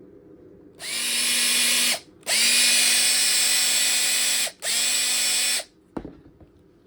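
Makita DF458D 18V cordless driver drill running in three bursts of a steady motor whine, the pitch rising briefly as the motor spins up at the start of each; a sharp click follows shortly after the last burst. It runs as a working unit in an operation check.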